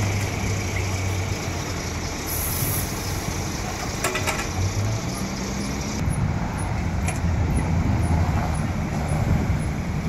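A heavy vehicle's engine running steadily, with road traffic noise.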